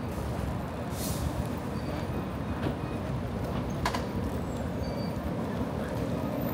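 Steady low rumble of city street traffic, with a brief high hiss about a second in and a sharp click a little past the middle.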